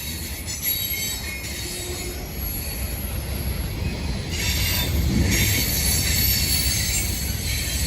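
Freight train rolling past, its car wheels squealing against the rails in thin high tones over a steady low rumble; it grows louder about four and a half seconds in.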